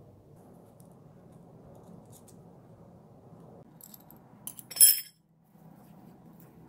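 Sharp metallic clinks with a brief ringing, loudest about five seconds in, as a steel combination wrench knocks against the nut and small steel sprocket it is tightening. Under them, a faint steady hum.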